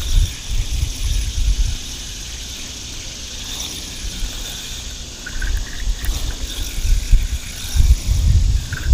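Wind buffeting the microphone in uneven gusts, strongest at the start and near the end, over a steady high insect chirring.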